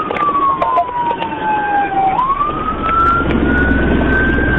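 Police car siren in a slow wail: the pitch falls for about two seconds, then climbs back up. A low rumble joins under it about halfway through.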